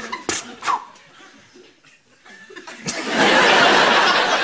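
Studio audience laughing, swelling up loudly about three seconds in after a near-quiet pause, with a few short sharp sounds at the start.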